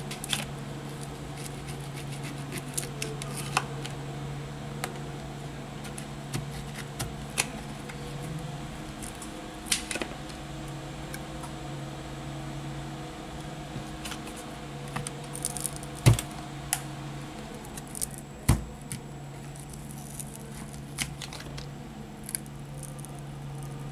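Thin opening card being worked into the seam of a Samsung Galaxy S10+ back cover, prying it up from its adhesive with scattered small clicks and scrapes and two sharper knocks a couple of seconds apart past the middle, over a steady low hum.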